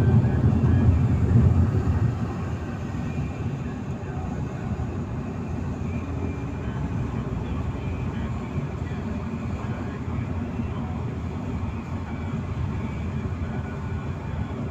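Road noise heard inside a moving car: a steady low rumble of tyres and engine, louder for about the first two seconds, then even.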